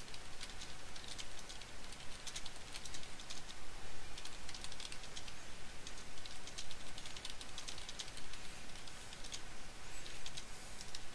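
Typing on a computer keyboard: quick key clicks in uneven runs with short pauses, over a steady hiss.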